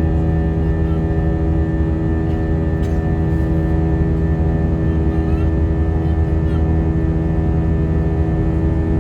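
Steady drone of an airliner cabin in flight: engine and airflow noise with a low rumble and several constant hum tones, unchanging throughout.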